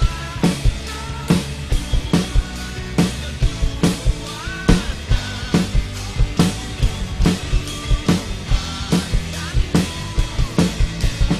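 Acoustic drum kit played live in a steady groove, with kick drum, snare and cymbals striking about three times a second. It is played over a drumless pop-rock backing track whose melody and bass run underneath.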